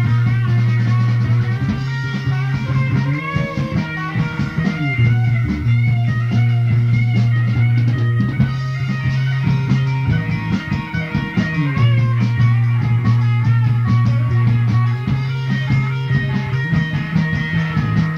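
Rock band recording playing: electric guitar over a bass that holds long, steady notes.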